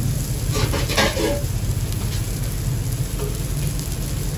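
Steady frying sizzle with the low rumble of a lit gas burner at a street-food burger griddle, and a short burst of clatter about a second in.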